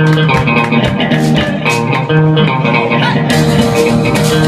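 Live band playing an upbeat instrumental boogie on guitar and bass guitar, with a steady percussive beat. The sound brightens about three seconds in.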